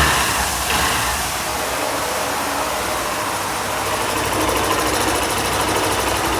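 Hero Glamour BS6 motorcycle's single-cylinder engine idling steadily.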